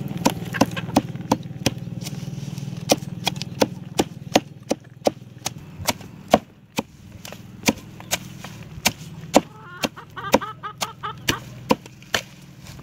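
A hatchet chopping a pile of leafy wild greens on a wooden log: quick, irregular chops, two or three a second, each a sharp thud through the leaves into the wood. Under the chops is a low steady hum that fades out in the first half.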